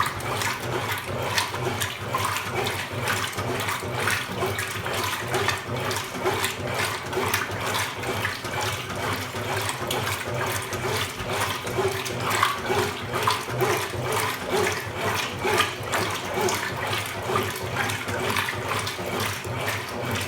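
Consul Supercargo 8 kg washing machine running through its wash cycle: water churning and splashing in the tub over a low, steady motor hum.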